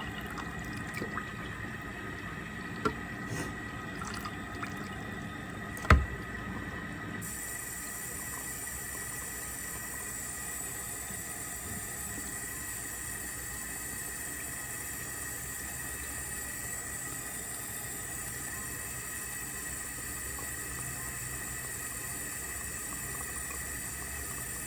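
A few light clicks and a knock about six seconds in, then water running steadily into a robot mop's water tank as it is filled.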